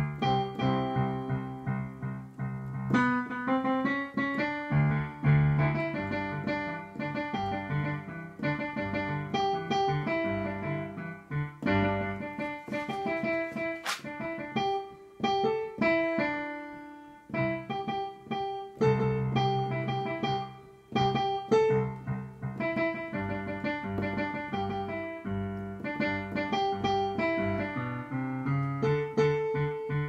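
Yamaha digital piano played with a piano sound: a continuous run of chords and melody notes, with a couple of short breaks in the second half.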